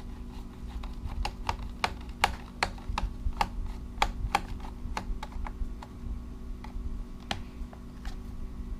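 Irregular sharp clicks and taps of a screwdriver working against the small screws and plastic shell of a 3DR Solo drone, several a second at first and then fewer, with one louder click near the end.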